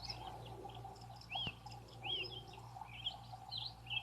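Faint birds chirping, many short arching calls overlapping, over a steady low hum.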